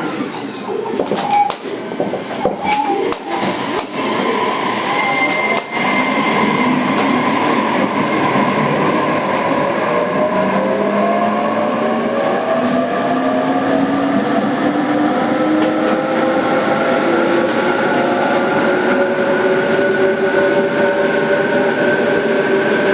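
JR Kyushu 817 series 3000-subseries electric train heard from inside a motor car: its VVVF inverter and traction motors whine in several tones that rise steadily in pitch as the train accelerates, starting about eight seconds in. A few knocks and clanks come in the first seconds, over steady running noise.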